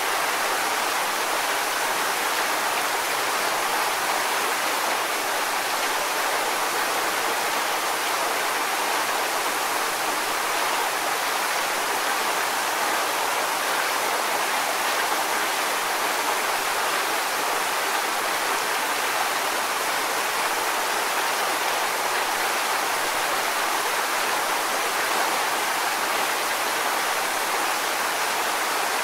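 Waterfall: a steady, unbroken rush of falling water, with little deep rumble.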